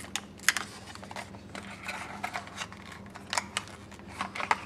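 A smartwatch being worked out of a tightly packed white cardboard box insert: scattered light clicks, taps and scrapes of cardboard and the watch, loudest about half a second in and again in a cluster near the end.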